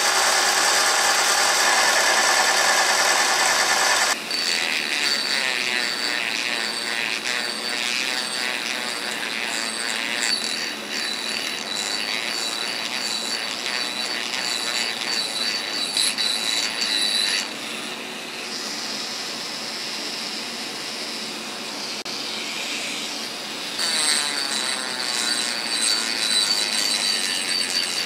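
A mini lathe spins a sanding drum while a steel trigger guard is pressed against it, a loud steady whine with grinding that cuts off suddenly about four seconds in. Then a Dremel rotary tool with a small abrasive bit runs at high speed, a thin high whine over a hissing grind as it works the steel trigger guard. It eases off for a few seconds past the middle and grows louder again near the end.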